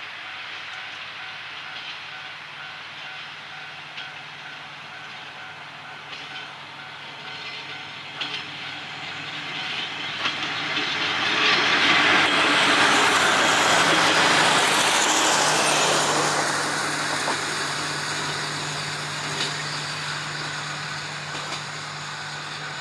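Kominato Railway diesel railcar approaching with a steady engine hum. It grows much louder as it passes close by about halfway through, wheels clattering on the rails, then fades slowly as it draws away.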